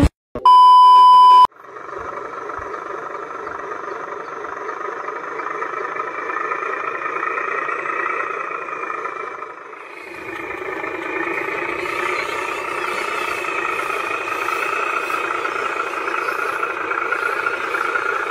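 A loud single beep lasting about a second, then a steady engine-like hum from the radio-controlled model truck and excavator. The hum dips briefly about ten seconds in and then picks up again.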